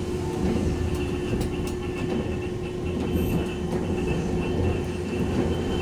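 Randen high-floor tram running on street track, heard from inside the cab: a steady low rumble of wheels and running gear with a steady hum, and a few light clicks.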